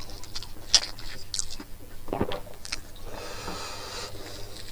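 Close-up eating sounds: chewing with short clicks and smacks from the mouth, while fingers mix rice on a plate.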